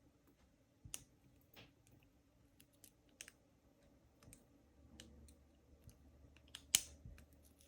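Faint, irregular clicks of a hook pick and tension wrench working the pin tumblers of an Ace 50mm laminated padlock, the pins setting one by one. The loudest click comes near the end.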